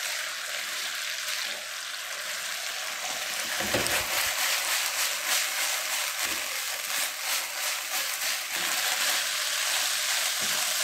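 Chicken pieces in a sticky honey chili sauce sizzling in a nonstick wok over a high gas flame as the sauce reduces and coats them. A silicone spatula stirs and scrapes, and a couple of dull knocks come as the pan is shaken, about 4 and 6 seconds in.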